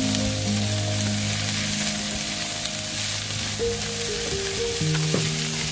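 Diced celery and onion sizzling in butter in a stainless steel frying pan, stirred with a silicone spatula. Background music with long held notes plays along.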